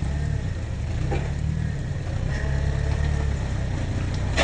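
Off-road crawling vehicle's engine running steadily at low revs.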